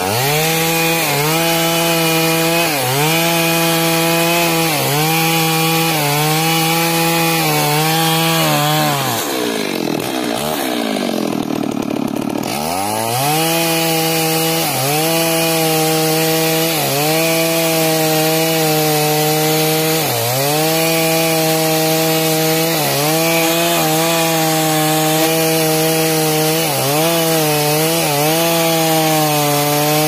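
Two-stroke chainsaw running at high revs while cutting through wood, its pitch dipping briefly every couple of seconds as the chain bites. About nine seconds in the engine falls away toward idle, then revs back up about three seconds later and carries on cutting.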